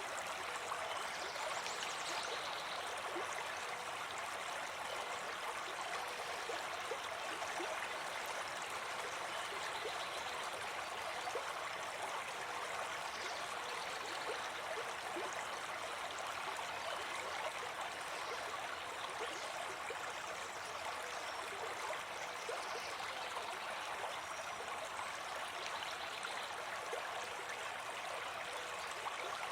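Small brook babbling steadily, water running over stones.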